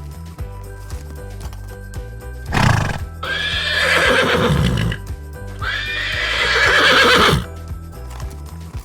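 A horse whinnying twice, each call about two seconds long and falling in pitch, after a short burst of noise just before the first. Background music with a steady beat plays throughout.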